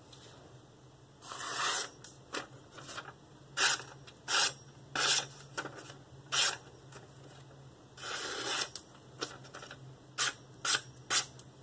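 KitchenAid 7-inch santoku knife slicing through scraps of thin printed paper in a string of short, crisp papery swishes, with two longer rustles. This is a sharpness test of a freshly sharpened and stropped edge.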